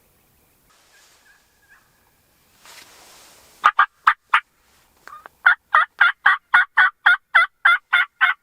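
Turkey yelps, loud and close: three short yelps a little over three seconds in, then after a brief pause an evenly spaced run of about a dozen, roughly three a second.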